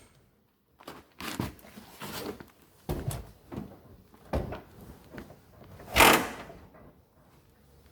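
Emergency brake being set on a 1971 Oldsmobile 98: a string of separate mechanical clicks and clunks from the brake mechanism and pedal, with a louder clunk about six seconds in.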